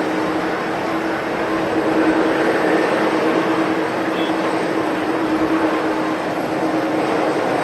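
Steady noise of jet airliner engines across an airport apron, with a constant hum and no sudden events.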